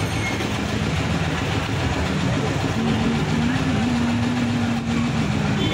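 Auto-rickshaw engine idling amid dense street noise, with a low steady drone that shifts pitch a few times in the second half.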